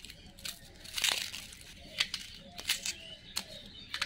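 Small knife scraping and tearing the dry, papery skin off an onion: short irregular crackles and rustles, several a second.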